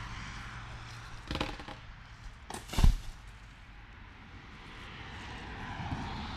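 Two short knocks over a steady outdoor background: a faint one a little over a second in, and a much louder, sharp thump near the three-second mark.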